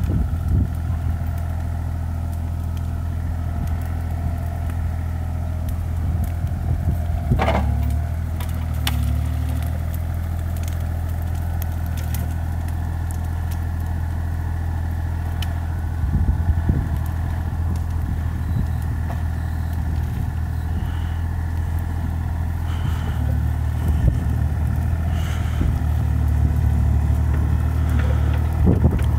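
Bobcat E35 mini excavator's diesel engine running steadily as the machine works, with a brief squeal about seven seconds in and a few short knocks later on.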